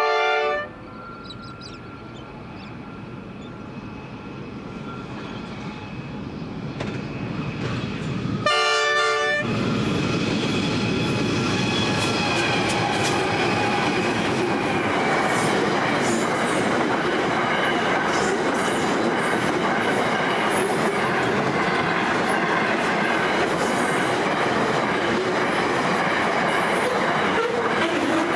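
Freight train led by three NR class diesel-electric locomotives sounding two short horn blasts, one at the start and one about nine seconds in, as it approaches and grows louder. It then passes with a steady rumble of many wagons and clicking of wheels over the rail joints.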